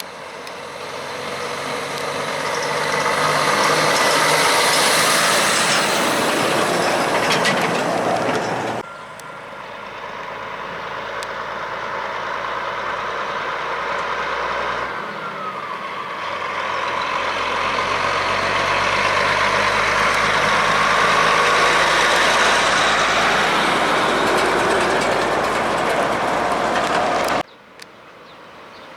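Heavy trucks driving past, engine and tyre noise swelling as each one approaches and easing as it goes. The sound breaks off abruptly about nine seconds in and again near the end.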